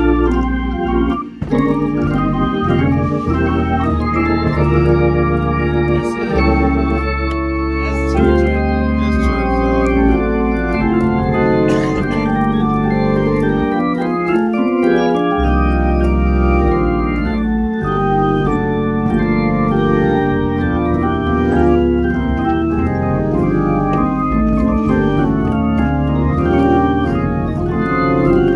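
Hammond organ played solo in the Detroit COGIC gospel style: full sustained chords over deep bass notes. The bass drops out for a moment around the middle.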